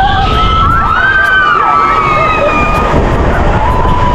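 Riders screaming on a swinging pirate-ship ride: several long, held and gliding shrieks that rise and fall, over a steady low rumble.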